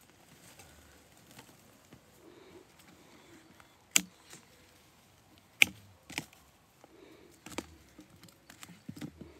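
Several sharp snips of hand pruning shears cutting woody shrub stems, spaced a second or more apart, the loudest two near the middle, with faint rustling of twigs between.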